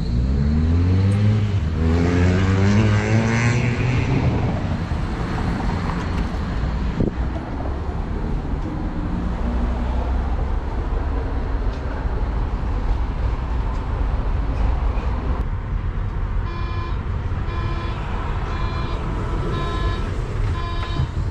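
Bombardier Flexity Berlin low-floor tram: its electric drive gives a rising whine as it pulls away, then a steady running rumble heard from inside the car. Near the end, a beeping door warning tone repeats several times while the tram stands at a stop.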